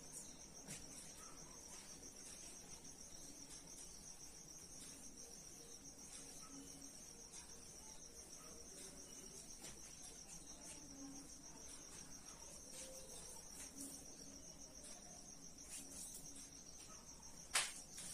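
Faint, steady high-pitched trill of a cricket, with one sharp click about a second before the end.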